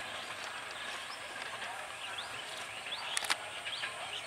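Open-air ambience after a train has gone: birds chirping with many short rising and falling calls over faint distant voices, with a couple of sharp clicks about three seconds in.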